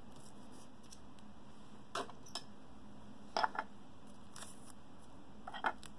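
A trading card being slid into a plastic card sleeve: quiet, scattered short clicks and rustles of plastic and card being handled, over a faint steady room hiss.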